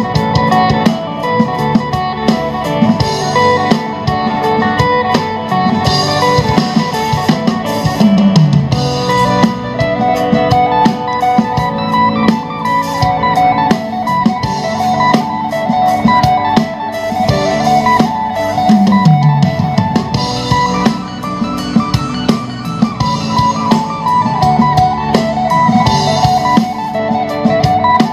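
A song with guitar and drum kit played at high volume through a small Bluetooth active subwoofer box, with a 5-inch woofer and a horn tweeter, as a sound test. A low note slides down twice.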